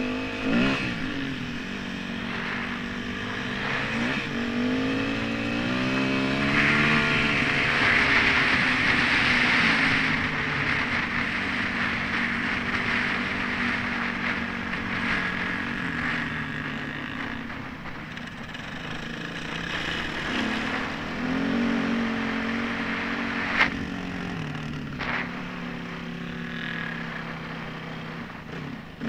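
Yamaha WR250 single-cylinder dirt bike engine heard from a helmet camera, revving up and shifting through the gears as it rides, with wind rushing over the microphone at speed and a single sharp knock about two-thirds of the way through.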